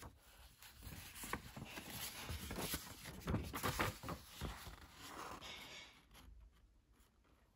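Faint rustling with scattered soft taps and clicks, fading away near the end.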